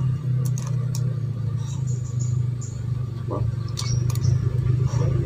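Steady low mechanical hum, like an idling engine or motor, with a few light clicks of a metal spoon against a ceramic plate.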